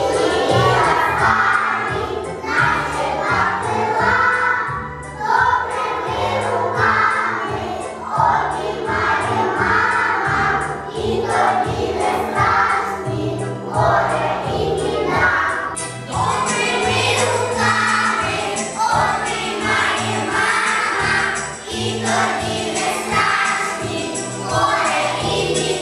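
A group of young children singing a song together over an instrumental accompaniment with a steady bass line.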